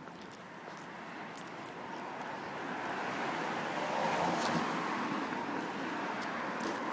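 Street traffic noise, swelling over the first few seconds as a vehicle comes closer, then holding steady.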